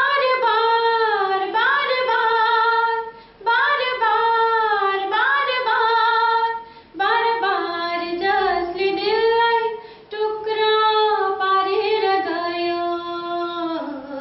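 A woman singing a sad song unaccompanied, in long held, gliding phrases with short breaks about every three seconds.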